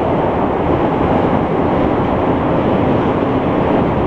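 Montreal Metro MR-73 train running, heard from inside the car: a steady, loud rumble of its rubber-tyred running gear and the tunnel.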